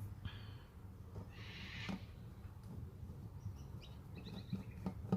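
Faint small clicks and taps of tiny screws and a plastic key fob casing being handled during reassembly, with short bird chirps in the background.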